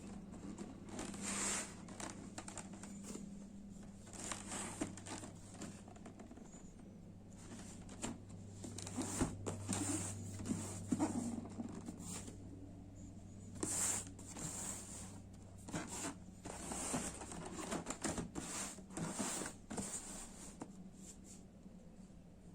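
Packaging being handled and opened by hand: scattered rustles, scrapes and tearing sounds coming irregularly, some a little louder, over a faint steady hum.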